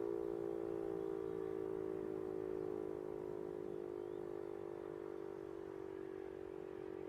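E57 electric motor siren sounding, its howling tone sliding slowly downward in pitch and fading a little as the rotor loses speed.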